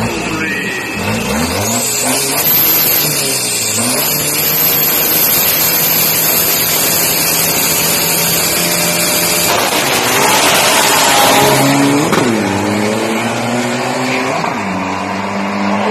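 Turbo-diesel engines of a Toyota Fortuner and an Isuzu drag racer revving at the start line and then holding a steady note. About ten seconds in they launch at full throttle, and the sound gets suddenly louder. The engine pitch then drops and climbs again twice, near twelve and fourteen and a half seconds, as they shift up down the strip.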